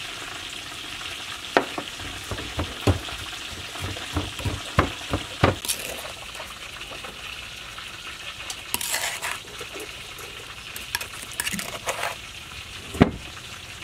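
Utensils knocking and scraping against a clay mortar and a glass bowl as pounded chili sauce paste is scooped across, over a steady hiss. The knocks cluster in the first few seconds, a short scrape comes about halfway through, and one louder knock comes near the end.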